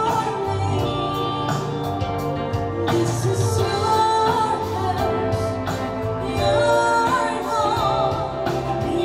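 A woman singing a Christian worship song live into a microphone, holding notes with some vibrato, accompanied by electric guitar and a Yamaha PSR-SX900 keyboard.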